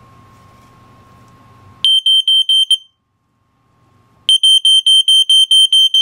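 Smoke detector turned water alarm going off as its bare wire ends touch water: a loud, high-pitched beep pulsing about six times a second. It sounds for about a second starting about two seconds in, stops, then starts again about four seconds in.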